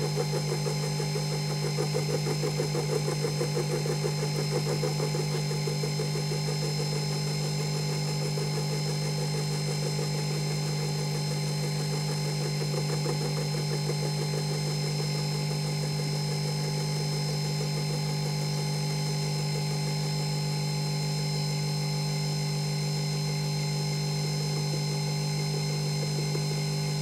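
Emco Unimat 3 mill running steadily, its end mill taking a light pass across a small casting as the slide is fed slowly by hand. A fluttering cutting sound over the first several seconds settles into a steady hum.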